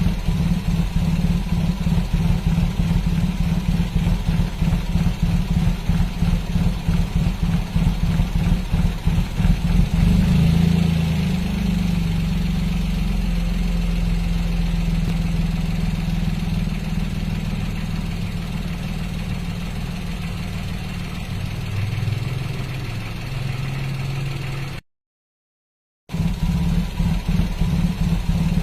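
Daihatsu Ayla's three-cylinder petrol engine running rough and uneven, with a stutter when the throttle is pressed. About ten seconds in it settles into a steadier run at a higher pitch, then turns choppy again after a break of about a second near the end. The owner suspects worn spark plugs or a failing ignition coil.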